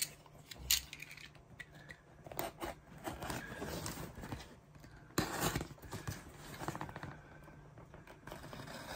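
A cardboard shipping box being cut open: a blade slitting the packing tape, with scraping and handling of the cardboard, and a sharp knock about five seconds in.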